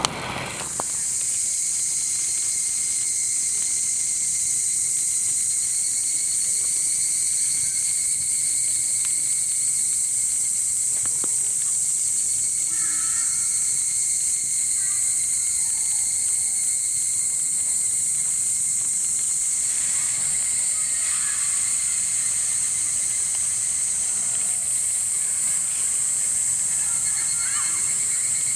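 Steady, high-pitched, shrill chorus of night insects, with a few faint short chirps here and there.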